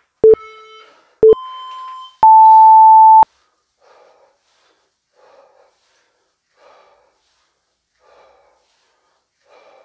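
Tabata interval timer counting down: two short beeps a second apart, then a longer, higher beep of about a second marking the end of the interval. After it, faint breaths come about every second and a half.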